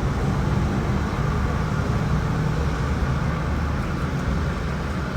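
A steady low rumble with no distinct events, and no speech.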